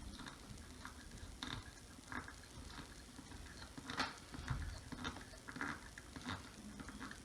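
A metal cup hook being screwed by hand into a wooden board: faint, irregular little creaks and clicks as its thread bites into the wood.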